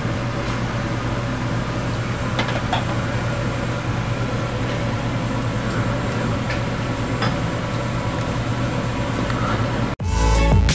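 Steady low hum of a street-food cooking stall, with a few faint clicks and scrapes as a ladle stirs tteokbokki in a large pan. About ten seconds in it cuts off abruptly and music with a beat begins.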